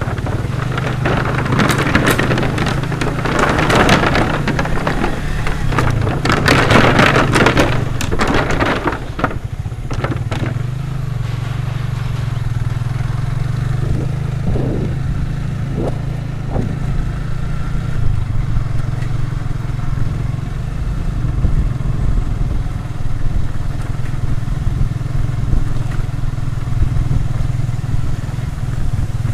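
Small motorcycle engine running steadily under a low, even hum while riding. For the first nine seconds or so a loud, dense crackling and clattering rides over it, then it dies away to a few scattered clicks.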